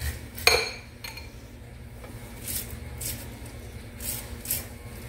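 Table knife scraping down a bare corn cob into a bowl of cut kernels, in short repeated strokes about two a second, after one sharp clink about half a second in. The scraping pushes the cob's remaining pulp and starch into the corn, which helps thicken cream corn.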